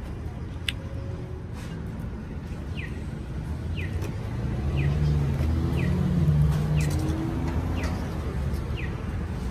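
A car passing on the street: a low engine and tyre rumble over steady traffic noise, growing louder to a peak about six seconds in, then easing off. A short, high, falling chirp repeats about once a second through the middle.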